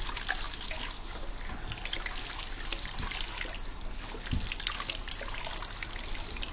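Handheld shower sprayer running water onto a baby's chest in a plastic baby bath: a steady trickling hiss with scattered small splashes.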